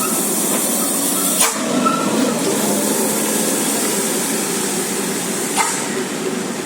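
Steady rushing noise of traffic passing close by, with two brief sharp clicks, one about one and a half seconds in and one near the end.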